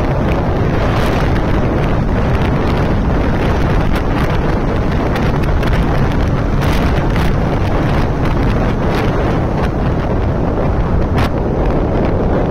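Heavy wind rush and buffeting on the microphone of a motorcycle riding at about 90 to 100 km/h, with brief gusts flaring now and then; the engine is buried under the wind.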